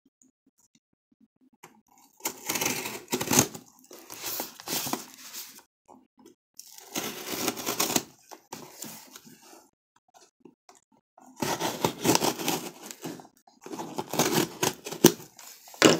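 A cardboard shipping box being handled and its packing tape slit and torn open with a small blade. The sound comes in about four rough scraping, rustling bursts, starting about two seconds in.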